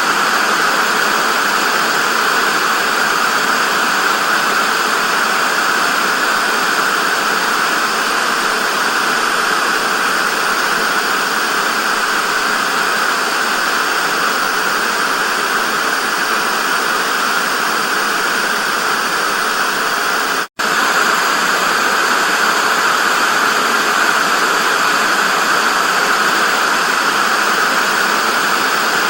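Television static: a steady, loud hiss of white noise, strongest in the upper middle, cutting out for a split second about twenty seconds in.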